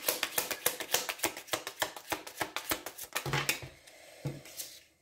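A deck of oracle cards being shuffled by hand: a fast run of crisp clicks that stops about three seconds in. Then a few quieter ticks as a card is handled and laid on the wooden table.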